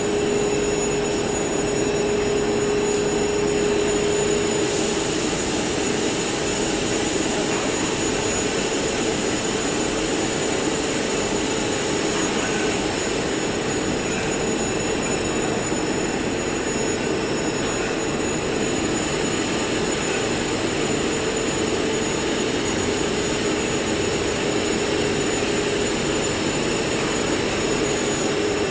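Stretch film winding machine running steadily: a continuous mechanical whir and hiss with steady high whines over it. A steady hum in the lower middle is strong for the first five seconds or so, then fades back into the rest.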